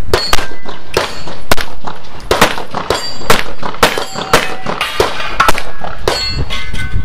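Rapid pistol fire, about two to three shots a second throughout, with steel targets ringing after several hits during a 3-gun stage.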